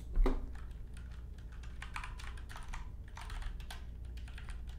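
Typing on a computer keyboard: a quick, irregular run of key clicks, with one louder knock just after it begins.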